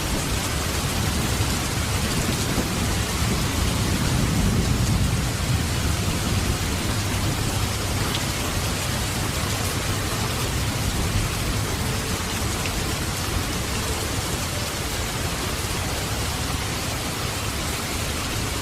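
Steady heavy rain hissing evenly, with a low rumble that swells a few seconds in and fades away.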